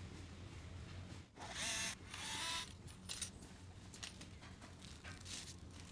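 Black plastic RC kit chassis parts handled and screwed together with a small hand screwdriver: two short rasping scrapes with a faint squeak between about one and a half and two and a half seconds in, then a few light clicks.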